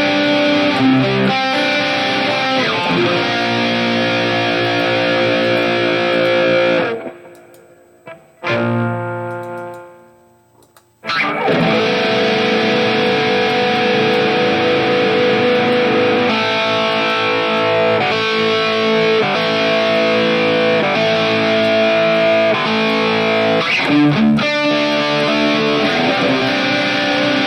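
Distorted electric guitar played through a digital modeling multi-effects unit with the "C1" chorus model switched on, sustained chords and notes. The playing stops about seven seconds in, a single note rings out and fades, and the playing picks up again about four seconds later.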